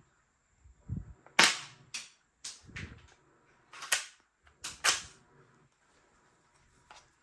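Toy pistol shooting: about six sharp snaps, irregularly spaced, with a couple of low thuds among them.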